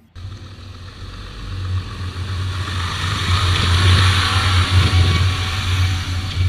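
Caterpillar 992C wheel loader's diesel engine running hard as the machine lifts its bucket to load a truck trailer: a steady low drone with heavy mechanical noise on top, growing louder over the first few seconds.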